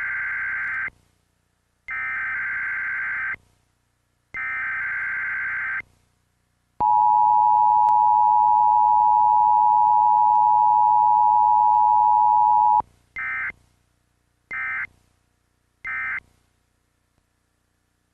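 Emergency Alert System Required Weekly Test: three bursts of SAME digital header data, each about a second and a half long, then the two-tone EAS attention signal held steady for about six seconds, then three short end-of-message data bursts.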